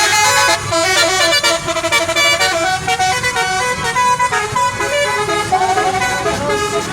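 Bus telolet horn, a set of air horns played by a controller, sounding a quick melody of stepped notes.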